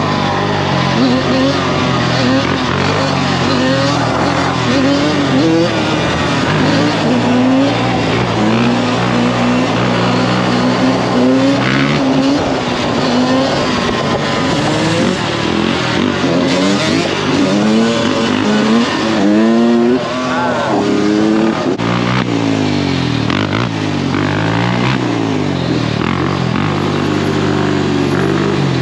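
Dirt bike engines being ridden hard, revving up and down so the pitch rises and falls again and again. In the later part two engines are heard at once, their pitches crossing.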